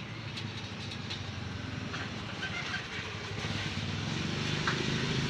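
A steady low engine-like rumble that grows gradually louder, with a few light clicks and taps over it.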